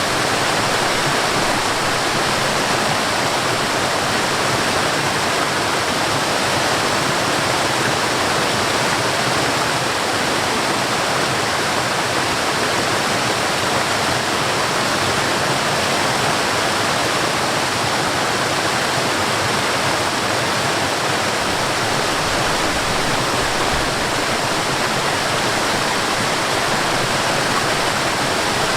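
Steady rush of water: a stream flowing and water falling over a small waterfall.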